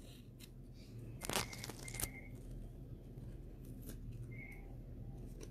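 Tape being peeled off card stock and the card panel handled, giving a few short soft crackles and taps, the loudest about a second in.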